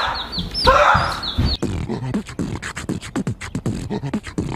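A few short rising vocal cries, then from about one and a half seconds in a quick, uneven run of percussive mouth clicks and pops, like beatboxing.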